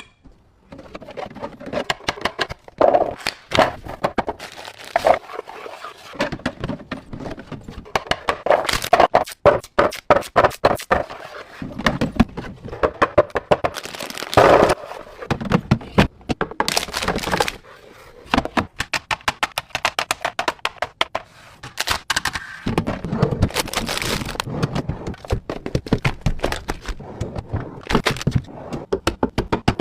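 Fridge being restocked by hand: a long run of clicks, knocks, taps and crinkles as packaged food, bottles and plastic containers are handled and set onto the shelves.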